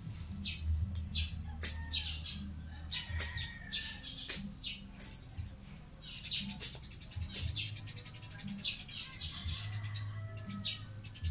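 Sharp swishing strokes of a hand blade slicing through grass and weeds, a few seconds apart, over birds chirping.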